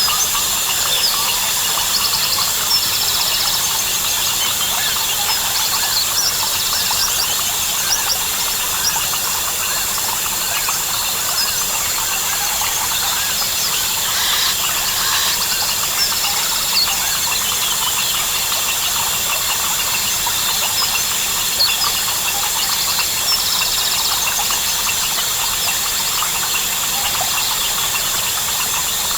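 Dense Amazon rainforest chorus: crickets trilling steadily and high, overlaid with many overlapping chirps and short pulsed call trains from frogs and birds, recurring every few seconds with no pauses.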